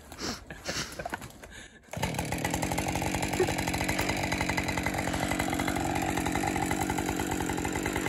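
A two-stroke chainsaw comes in suddenly about two seconds in and runs steadily at a constant pitch, ready to cut through a windthrown spruce trunk.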